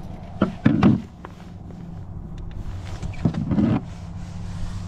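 A tailor (bluefish) thrashing against the kayak's plastic deck in two short bouts of quick thumps, one about half a second in and one about three seconds in.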